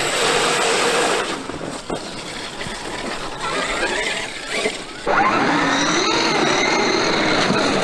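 Traxxas X-Maxx RC monster truck's brushless electric motor whining, its pitch rising and falling with the throttle, over a rough noise of the tyres on the ground. It gets suddenly louder about five seconds in.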